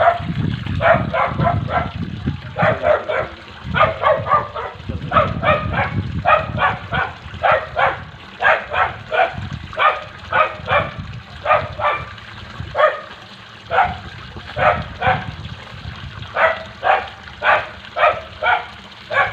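A dog barking over and over, about two barks a second, over a low rumbling background.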